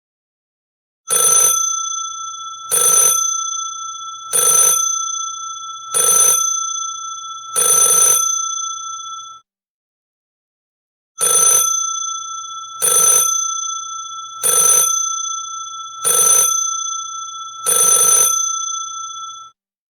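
Old-style telephone bell ringtone: five loud bell strikes about a second and a half apart, a pause of about two seconds, then five more. The bell rings on between strikes and cuts off sharply after the fifth strike of each group.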